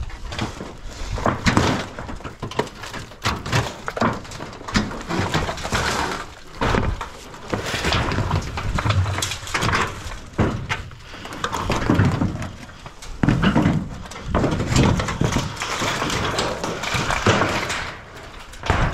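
Corrugated sheet-metal roofing being lifted, bent back and dragged across other sheets: irregular metallic rattles, scrapes and thumps.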